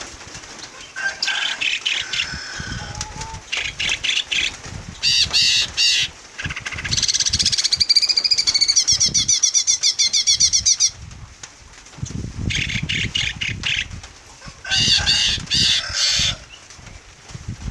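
Caged songbirds calling and singing in short bursts of sharp, high notes, with a long run of rapid repeated chattering notes in the middle. Low thuds and rustles come in between.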